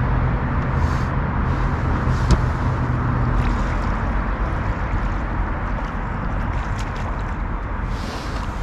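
Steady rushing and gurgling of strong river current along an aluminum boat's hull, with a low steady hum under it that fades out about three and a half seconds in.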